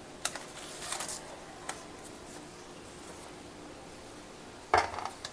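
Paper sheets holding edible silver leaf being handled and pressed onto a tray of barfi: a few soft paper rustles, then a single louder bump near the end.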